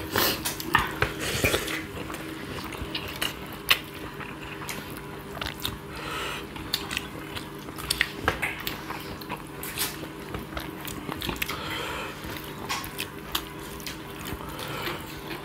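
People eating rice and fish curry by hand from stainless steel plates: scattered clinks and scrapes of fingers and food on the metal, with biting and chewing. A faint steady hum runs underneath.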